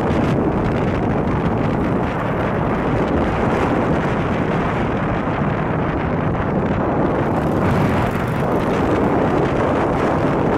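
Wind buffeting the microphone on a moving motorcycle, with the engine running underneath at a steady cruising speed.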